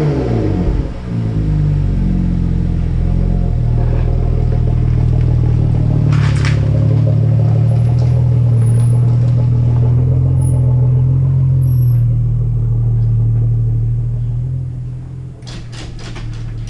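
BMW 335i's N55 turbocharged straight-six through a Corsa cat-back exhaust, revs falling back just as it begins, then settling into a steady, low idle. The sound fades about fifteen seconds in, with a few clicks near the end.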